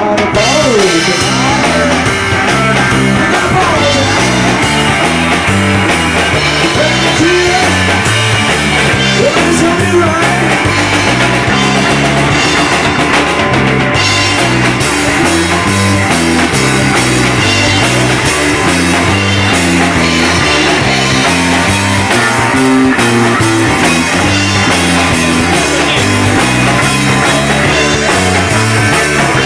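Loud rock music with a steady drum kit beat, bass and guitar, with a voice singing at times.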